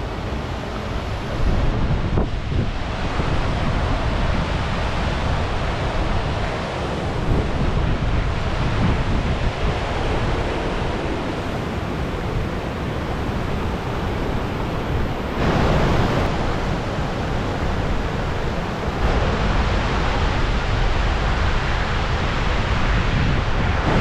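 Rushing water of a river waterfall, a steady noise, with wind buffeting the microphone. It gets louder for a few seconds in the second half.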